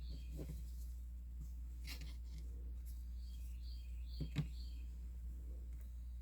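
A bird chirping in short high groups in the background, with a few soft handling clicks (the loudest about four seconds in) over a steady low hum.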